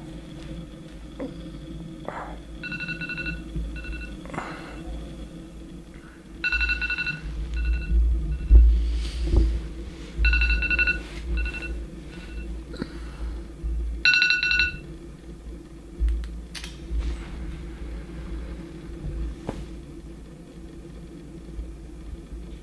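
An electronic ringtone sounds four times, about every four seconds, each time a longer tone followed by a few short beeps, and stops about fifteen seconds in. A low rumble runs underneath.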